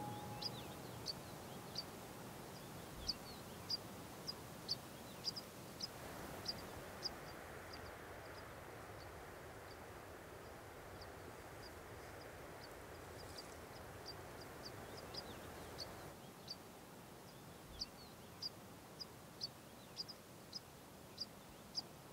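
A small bird repeating a short, high chirp about once or twice a second, the calls thinning out in the middle and coming back clearly near the end, over a faint steady outdoor hush.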